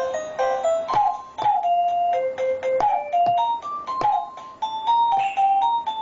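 Electronic toy music from a children's drum sound book: a simple melody of plain beeping notes, with drum sounds struck along with it about once a second.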